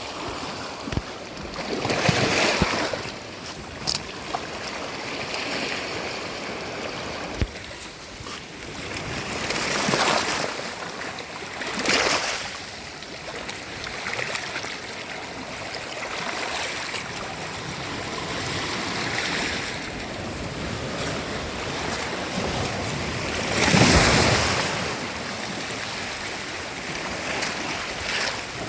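Sea waves washing onto a sandy beach: a steady hiss of surf with waves surging in every several seconds, the biggest about three-quarters of the way through. A few brief sharp clicks in the first third.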